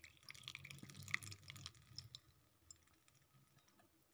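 Liquid trickling and dripping faintly through a plastic mesh sieve, with small clicks, falling to near silence after about two seconds.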